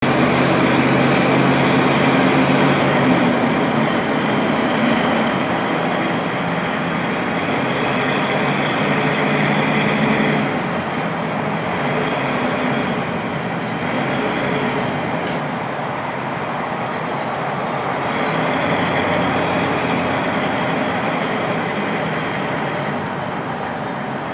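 Turbocharged Ford 7.3 IDI V8 diesel engine running under way, its turbo whistle rising and falling with the throttle over a steady engine drone. The whistle sags slowly, drops out briefly about two-thirds of the way through, then swoops back up before fading near the end.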